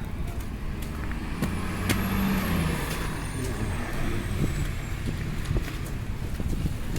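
A heavy road vehicle running in the street, a low engine rumble that swells about two seconds in, with a thin high whine slowly falling in pitch over a few seconds.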